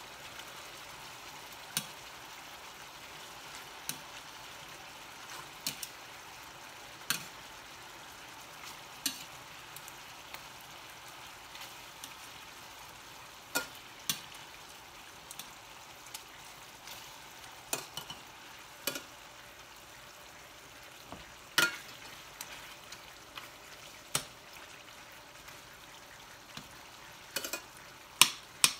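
Beef sizzling steadily in a stainless steel skillet as it is stirred, the utensil knocking and scraping against the pan every second or two, with the sharpest knocks about two-thirds of the way through and near the end.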